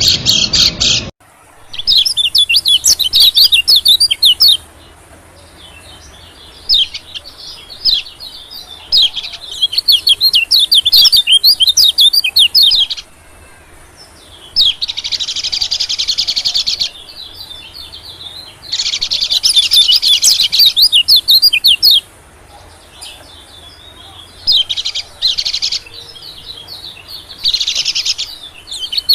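Bird-lure recording of white-eye (pleci) calls: loud bouts of rapid, high chirping and twittering, each a few seconds long, with short gaps between them. The sound cuts off abruptly about a second in before the chirping starts again.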